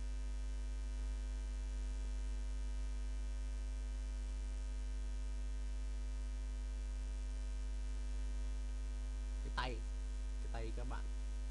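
Steady electrical mains hum, a low drone with a thin, even buzz of overtones above it, unchanged throughout. A short vocal sound comes in near the end.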